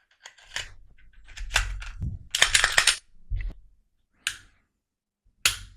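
Glock 43X pistol's slide being slid back onto the frame rails: light metallic clicks, a scraping slide about two and a half seconds in, then a snap and a few sharp clicks as the slide seats and the action is worked.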